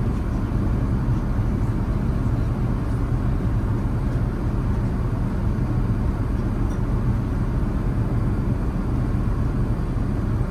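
Airbus A380 cabin noise in flight: a steady, low, even rumble of engines and airflow heard from inside the passenger cabin.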